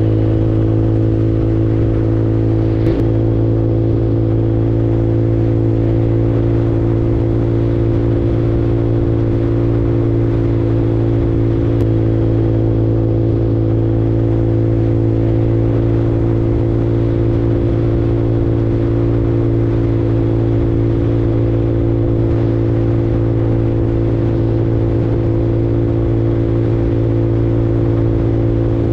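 150cc Super Hornet automatic scooter's engine running at a steady cruising speed, an even drone that holds one pitch throughout.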